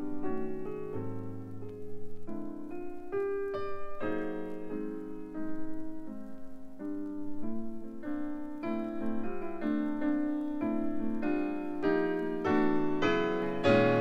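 Jazz keyboard music played from a vinyl LP: held keyboard chords and melody notes changing about once a second, getting louder and higher near the end.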